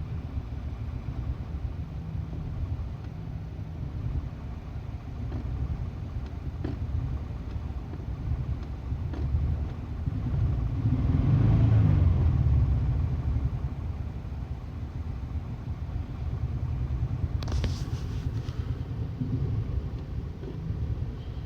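2001 Subaru Impreza's 2.2 L EJ22E flat-four engine running, swelling louder for a couple of seconds near the middle. It is misfiring on cylinders 1 and 3, later traced to a dropped valve guide holding an exhaust valve open.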